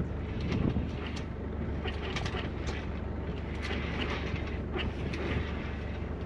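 Sailboat's inboard engine running with a steady low drone, with scattered knocks and rattles over it.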